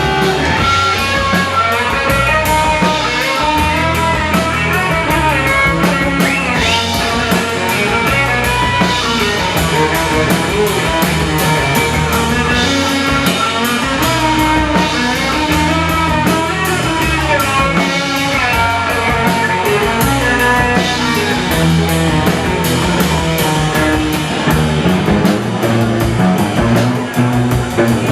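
Rock music with guitar and a drum kit playing.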